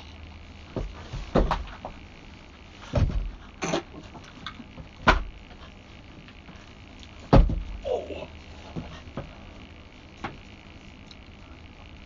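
Irregular knocks and thuds, the loudest about three and seven and a half seconds in, over a steady low hum.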